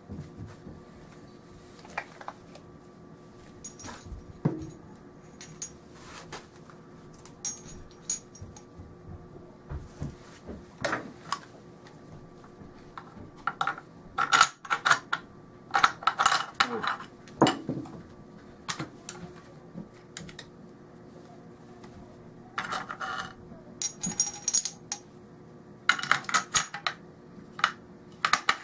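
Steel parts of a Norinco SKS rifle's bolt and action clicking and clinking as they are fitted back together after cleaning. The clicks come in scattered clusters, busiest about halfway through and again near the end.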